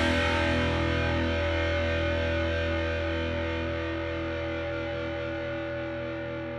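Closing rock music ending on one held, distorted electric-guitar chord that rings on and slowly fades.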